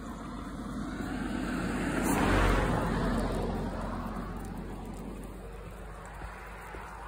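A car passing by on the road, its tyre and engine noise growing, loudest about two and a half seconds in, then fading away.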